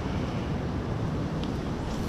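Steady rush of wind on the microphone mixed with surf at the shoreline.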